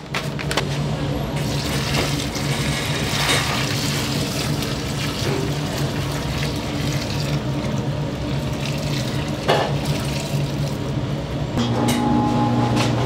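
Water running steadily, as from a kitchen tap, over a steady low hum, with a single knock about nine and a half seconds in.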